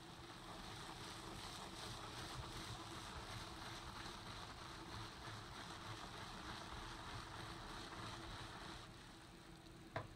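Rubber-gloved hand rubbing powdered cleaner into a carpet: a faint, steady scrubbing that stops about a second before the end. A single sharp tap follows.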